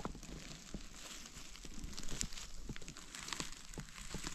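Footsteps through forest undergrowth: leaf litter and twigs crackling and rustling underfoot in quick, irregular crackles.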